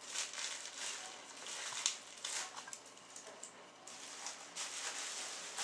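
Thin plastic trash-bag film crinkling and rustling in irregular bursts as the balloon is handled and taped over its rips.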